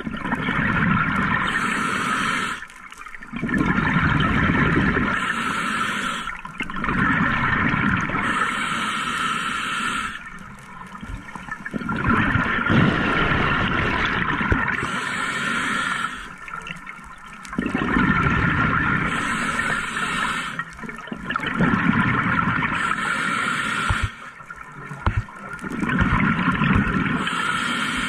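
Scuba diver breathing through a regulator: a rush of exhaled bubbles every three to four seconds, about seven breaths, with a short hiss of inhalation between them.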